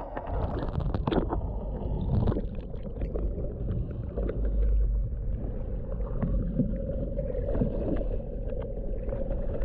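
A boat motor running steadily, with water sloshing and wind on the microphone. For about the first two seconds it is heard under water; after that it is heard in the air, with scattered short knocks and splashes.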